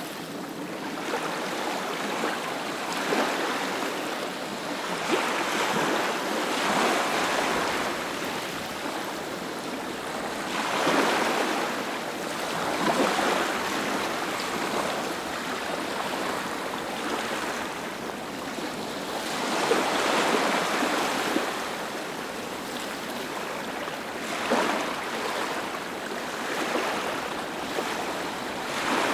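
Ocean surf: waves breaking and washing on a shore one after another, swelling and easing every few seconds over a steady wash of water.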